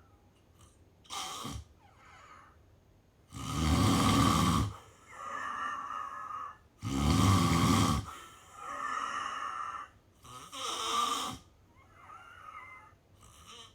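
Snoring during sleep in a slow breathing rhythm. Two loud snores come about three and seven seconds in, each followed by a softer breath, and the snores grow softer again near the end.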